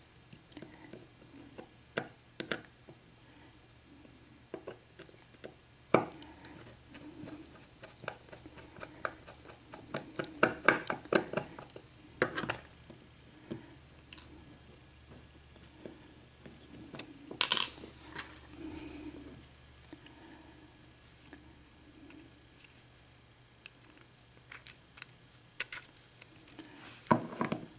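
Irregular light metallic clicks and taps of a 5-pin cylinder lock being taken apart by hand, the small lock parts knocking against tools and each other.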